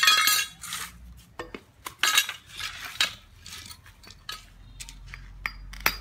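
Metal pipe used as a makeshift hammer, knocking on metal and wood: sharp clinking strikes with a short ring. The loudest comes right at the start, more about two and three seconds in, then lighter scattered taps.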